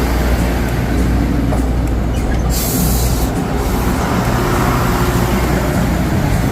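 A large vehicle rumbling steadily and loudly, with a short hiss of air lasting under a second about two and a half seconds in.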